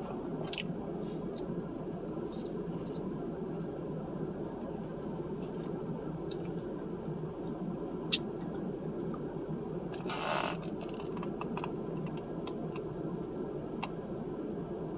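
Eating sounds close to the microphone: chewing with scattered small clicks and ticks over a steady low background noise, and a brief rustle about ten seconds in.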